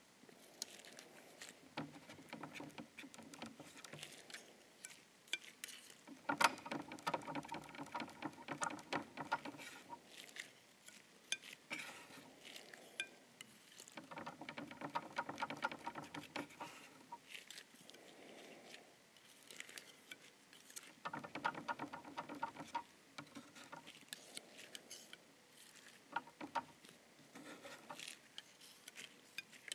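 Palette knife mixing paint on a palette: faint quick scrapes and taps in several uneven bursts, busiest about six to ten seconds in and again around fifteen and twenty-two seconds.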